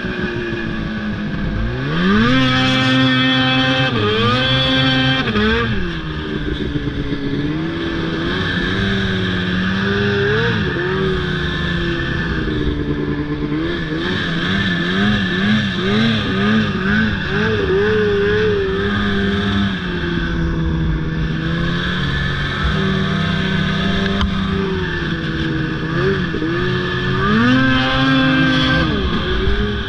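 Snowmobile engine heard from on board as it is ridden, revving up and down: its pitch climbs sharply about two seconds in, rises and falls several times through the middle, and climbs again near the end.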